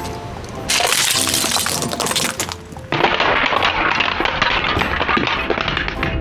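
Objects crunching and cracking as they are crushed under a car, in two long stretches of dense crackling, the second starting about three seconds in. Background music runs throughout.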